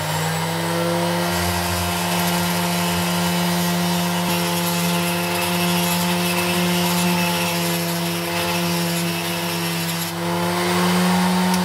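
Ferrex mini bench grinder's 120 W motor running at full speed through its flexible-shaft rotary handpiece, a diamond burr grinding into a slate block with a hiss over the steady motor hum. Its pitch holds steady under hard pressure: the motor does not slow or stall.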